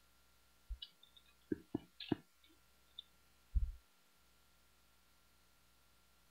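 About half a dozen short, faint clicks of computer keyboard keys over about two seconds, then a single low thump.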